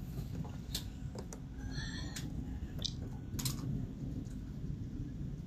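Outdoor sound of a night thunderstorm picked up by a phone: a steady low rumble with scattered sharp clicks and taps, and a couple of short high chirps about two seconds in.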